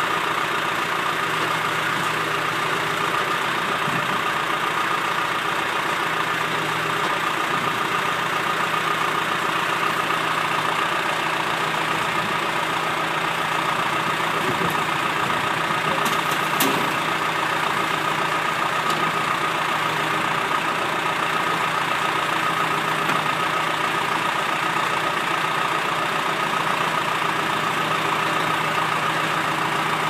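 John Deere backhoe's diesel engine running steadily, heard up close on the machine, with a single brief knock about halfway through.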